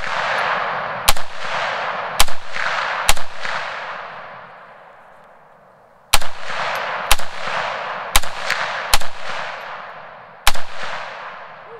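Semi-automatic .308 PSA AR-10 rifle firing through a cheap angular 'dragon' style muzzle brake, incredibly loud: three shots about a second apart, a pause of about three seconds, then five more. Each sharp crack is followed by a long fading echo.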